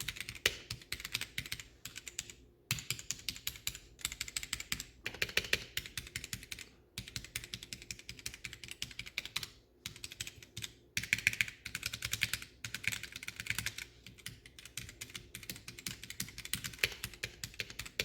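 Heavy-handed typing on a Womier (GamaKay) K87 mechanical keyboard with Gateron Red switches and an acrylic case with no dampening foam: fast runs of loud keystroke clacks with brief pauses between bursts. This is the worst case for how loud these keys can be.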